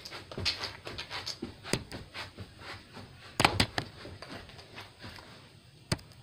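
Handling noise from a phone held in the hand: rubbing and a run of taps and clicks, loudest a little past halfway, with a single sharp click near the end.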